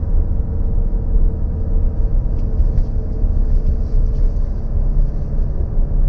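Jeep Commander SUV climbing a 30-degree dirt ramp, heard from inside the cabin: a steady low rumble of engine and tyres, with faint scattered ticks.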